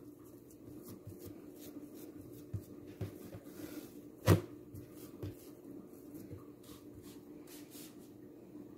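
Hands working risen yeast dough on a marble countertop, pressing the air out and stretching it flat. Faint soft pats and rustles, with one louder thump of the dough on the counter about four seconds in.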